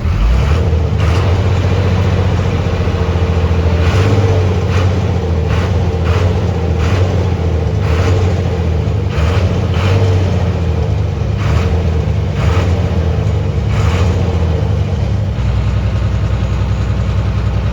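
Motor vehicle engine running with its pitch rising and falling, with a dozen or so short knocks over the first fourteen seconds. About fifteen seconds in it settles to a steadier, lower note.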